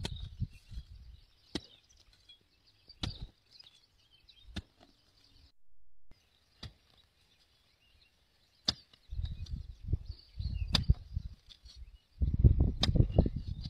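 Hand hoe striking into tilled soil, one sharp chop every one and a half to two seconds, over a faint high chirping. Bursts of low rumbling come in the second half, loudest near the end.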